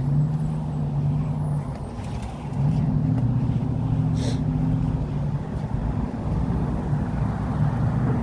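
Motor vehicle engine running with a steady low hum, as passing road traffic.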